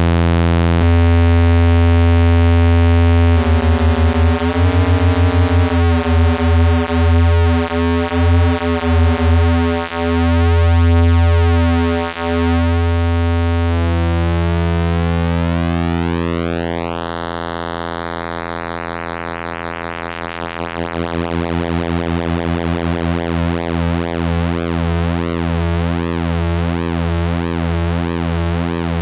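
Behringer Odyssey analog synthesizer holding a low, buzzy sustained note rich in overtones. The note pulses in loudness for several seconds, then its filter sweeps open in a rising glide about halfway through, and it settles into a fast rhythmic pulsing near the end.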